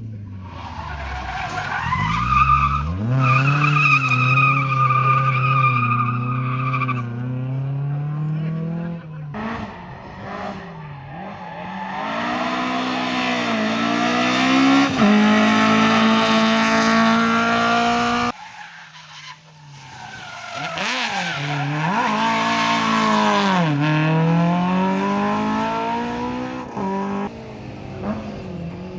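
Rally car engines revving hard and rising and falling in pitch as cars accelerate and lift off, with tyre squeal and skidding on the stage. The sound cuts off abruptly about two-thirds of the way through, then another car's engine builds up and revs again.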